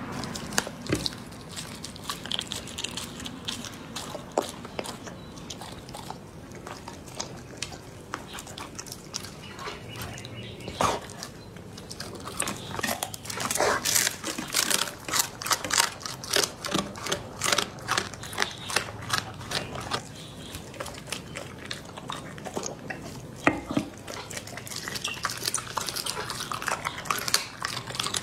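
A dog eating a raw-food meal of meat, fish and bone from a plate: wet chewing with many quick, crisp crunches. The crunching comes thickest about halfway through and again near the end.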